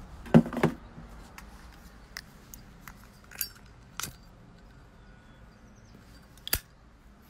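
Handling noise: about half a dozen short clicks and light metallic clinks, the loudest pair just under a second in, the rest scattered and fainter.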